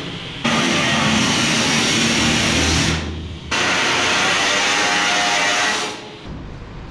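Abrasive cutoff wheel cutting through the sheet-steel bedside of a 1971 Chevy K5 Blazer, in two long cuts with a short break between them, stopping near the end. Rock guitar music plays underneath.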